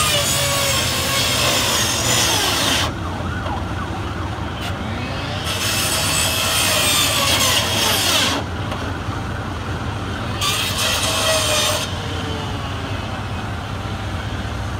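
A fire hose spraying water onto a burning car, a loud hiss that comes on and cuts off abruptly three times as the nozzle is opened and shut. Under it runs the steady low hum of a fire engine's engine, with faint siren wails rising and falling.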